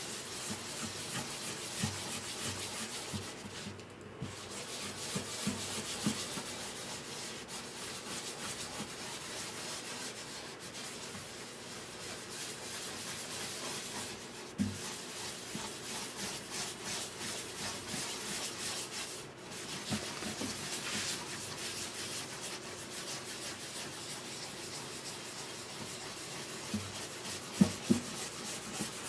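Sandpaper rubbed over wood by hand in continuous strokes, with short pauses. A few light knocks near the end.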